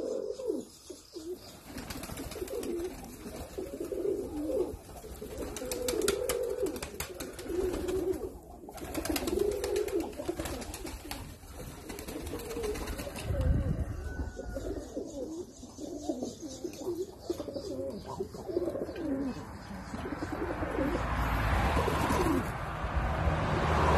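A flock of dönek (Turkish tumbler) pigeons cooing over and over, with a few short clatters partway through and a rising rush of noise near the end.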